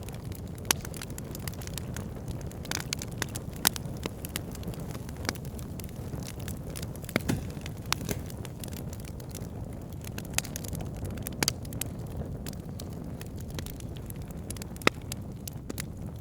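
Fire in a fireplace crackling: irregular sharp pops and snaps, a few louder than the rest, over a low steady rumble of the flames.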